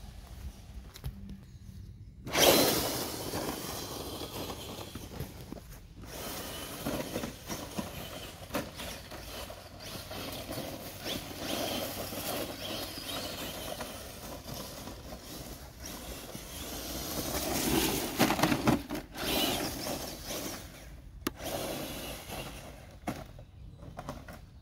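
Traxxas TRX-4 radio-controlled crawler driving over the forest floor: its electric motor and drivetrain whirr while the ground crackles under the tyres. The sound starts abruptly about two seconds in and rises and falls, with several sudden breaks.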